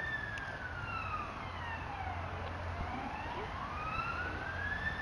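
Emergency vehicle siren wailing in a slow rise and fall. It sweeps down over the first couple of seconds, then climbs back up, about one full cycle in five seconds.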